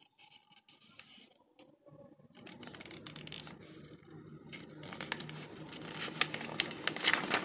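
Glossy paper pages of a catalogue being handled and turned, a crackly rustle that starts faintly and grows louder and busier over the last few seconds.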